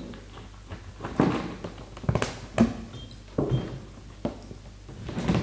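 Handling knocks and taps as the last screw comes out of a velomobile's nose shell and the loosened shell is held and shifted: half a dozen sharp, irregular knocks spread about a second apart.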